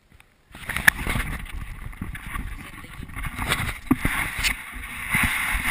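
Handling noise from a GoPro as it is moved and turned around: a low rumble and rustling, with scattered knocks and clicks, starting about half a second in.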